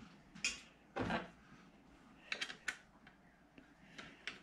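A few short clicks and knocks of quilting-frame parts being handled and fitted, with a quick cluster of sharp clicks about two and a half seconds in.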